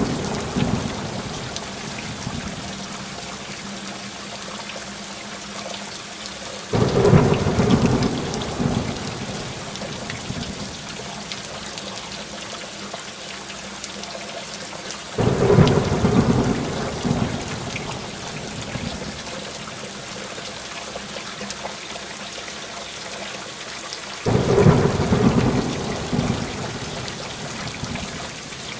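Steady rain with rolls of thunder: three times a rumble starts suddenly and fades away over a couple of seconds, about every eight to nine seconds.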